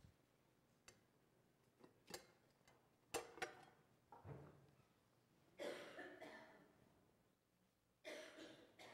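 Near silence with a few faint clicks and knocks, and two short coughs from people in the room, one about halfway through and one near the end.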